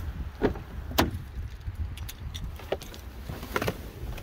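Citroën car door being unlocked and opened by its handle, with sharp clicks and knocks, the loudest about a second in, and keys jangling as someone climbs into the driver's seat.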